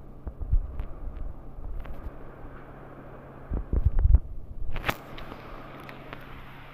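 Handling noise from a phone being moved around at floor level: low thumps and rumbles, twice, over a steady low hum, with one sharp click about five seconds in.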